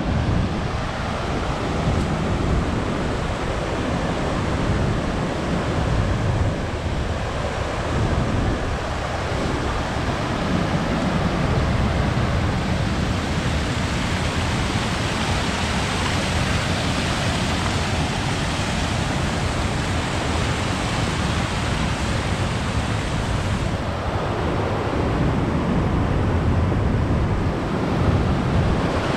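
Waterfall and its travertine cascades, a steady rush of falling water, with wind buffeting the microphone in uneven gusts.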